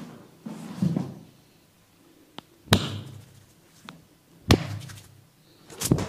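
Hands slapping a bare back during a massage: a duller thud about a second in, then three sharp smacks in the second half.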